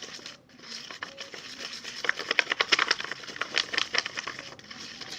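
Glue-and-shaving-foam slime with saline solution being mixed in a pot, a dense run of small sticky, crackling clicks that builds up in the middle and eases off near the end.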